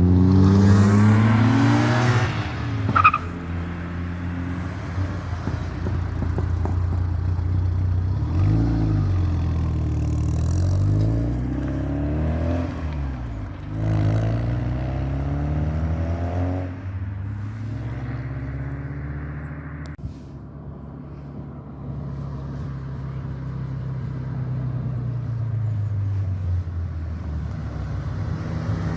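Rally cars passing one after another, their engines revving up and dropping away in turn. The engine sound then settles to a steadier, quieter hum that builds again near the end.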